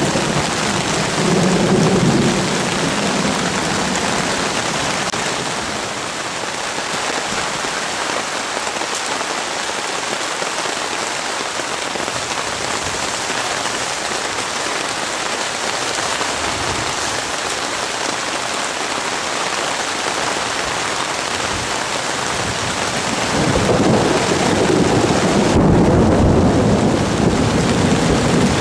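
Heavy rain falling steadily on lake water, a continuous hiss, with rolling thunder rumbling in the first couple of seconds and again, louder, over the last five seconds.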